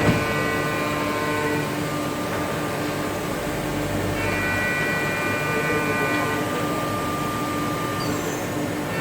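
Mazak Nexus 4000-II horizontal machining center running, a steady hum with a whine of several high tones over it. The whine drops away after about a second and a half, returns between about four and six and a half seconds in, then fades again.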